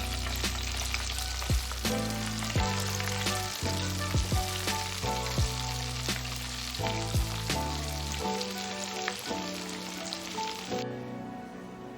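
Batter-coated chicken pieces deep-frying in hot oil: a steady crackling sizzle that cuts off sharply near the end, with background music underneath.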